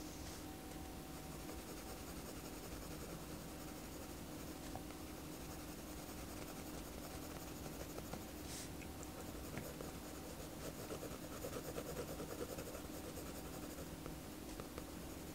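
Pen tip scratching on paper in quick, repeated hatching strokes, faint over a steady low hum. The strokes get busier and louder from about ten to thirteen seconds in.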